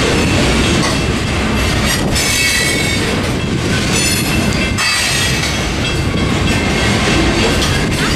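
Freight train of open-top hopper cars rolling past, steel wheels rumbling and clacking on the rails, with a high squeal from the wheels during the first few seconds.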